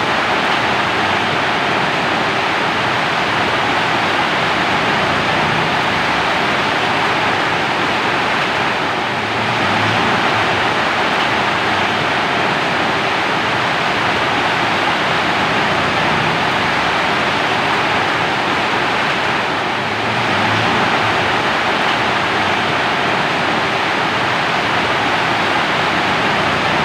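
Steady rain falling, an even hiss with a slight swell about every ten seconds.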